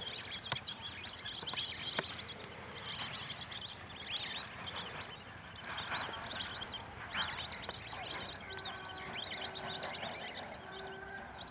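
A flock of lesser whistling ducks calling: many short, high whistles overlapping throughout. In the last third a faint steady tone comes and goes beneath them.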